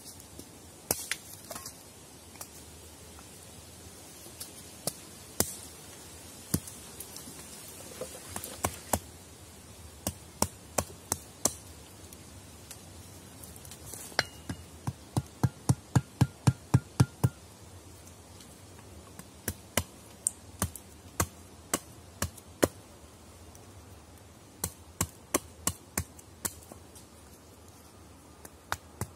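A small blade chopping into dry sticks held against a log, cutting kindling: sharp wooden knocks, scattered at first, then a quick run of about a dozen strikes about halfway through, and another cluster near the end.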